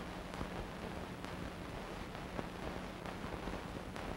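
Steady hiss with a low steady hum and scattered faint clicks: the background noise of a silent archival film transfer, with no sound from the rocket launcher itself.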